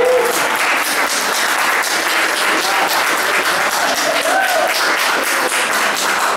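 Congregation applauding, a dense, steady patter of many hands clapping, with a short voice call heard above it about four seconds in.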